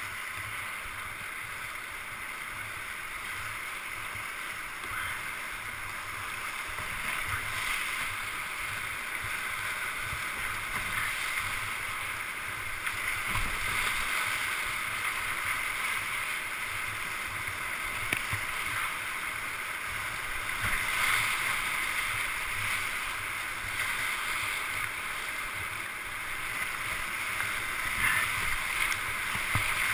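Whitewater rapids rushing steadily, heard from a kayak running through them, growing louder as the boat goes deeper into the rapid, with occasional splashes.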